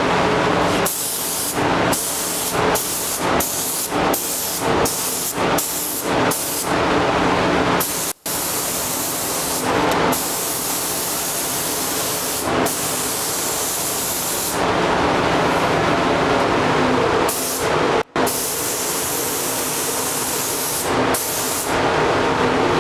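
SATA compressed-air paint spray gun hissing as it sprays paint: at first in short trigger pulls of under a second each, then in longer passes of several seconds. A steady low hum runs underneath.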